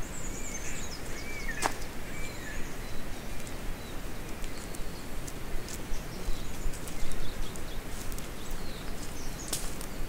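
Forest ambience: birds calling, with warbling, gliding calls in the first couple of seconds, over the steady rustle of footsteps on dry leaf litter. Scattered sharp clicks, the loudest about a second and a half in and again near the end.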